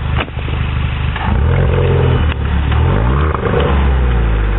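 2009 VW Scirocco's 1.4 TSI four-cylinder engine heard at the tailpipe, being revved while parked: the revs climb about a second in and are held, drop sharply a little past halfway and glide back up, then hold again.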